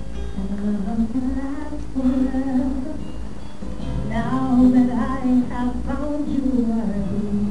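A woman singing a slow song with long, held, gliding notes over music.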